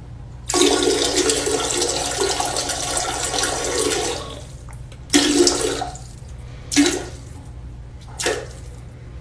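Dog urinating into a toilet bowl: a stream splashing into the water for about four seconds, then trailing off in four short spurts.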